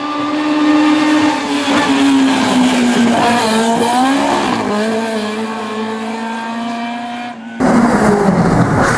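A historic racing car's engine running hard, its note falling, wavering up and down through the middle, then holding steady. About three-quarters of the way through, it cuts abruptly to a louder, rougher noise.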